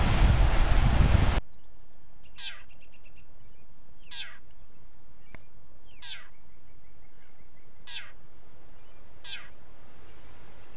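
Wind and rushing river water for about the first second and a half, then cut off abruptly. A songbird follows, giving a sharp call that sweeps steeply downward in pitch, repeated about every two seconds over a faint steady hiss.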